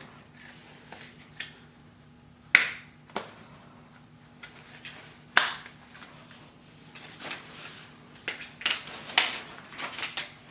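Sharp clicks and knocks of Baby Trend play yard parts being handled and fitted together. There are two loud ones about two and a half and five seconds in, then a busier run of them in the second half, over a faint steady hum.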